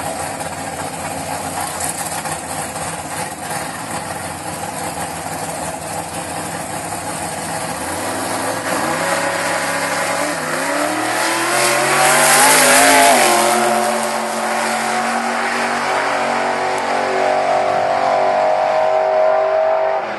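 Camaro drag car's engine running at the starting line, then revving up and launching on a full-throttle drag-strip pass; it is loudest at the launch about two-thirds of the way in, then keeps climbing in pitch at high revs as it runs away.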